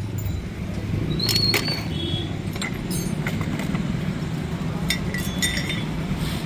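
Metal parts of a dismantled scooter clutch clinking as they are handled: a few sharp clinks, some ringing briefly, spread through. A steady low hum runs underneath.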